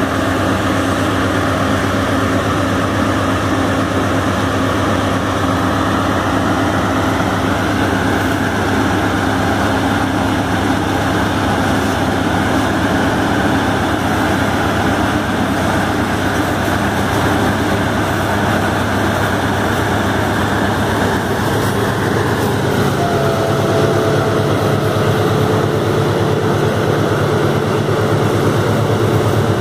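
Diesel locomotive's engine running with a steady low rumble heard close up. About two-thirds of the way through the low note shifts and a thin whine joins it, as exhaust smoke rises from the stack.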